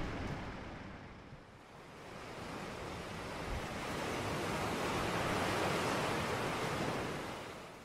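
Rushing noise of surf washing on a shore. It dips early, swells to its loudest past the middle, then fades out near the end.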